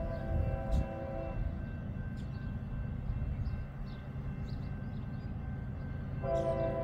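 A CSX ES44AH locomotive's K5LA five-chime air horn sounding a steady chord. It breaks off about a second and a half in and sounds again near the end. In between is the low rumble of the passing freight's locomotives.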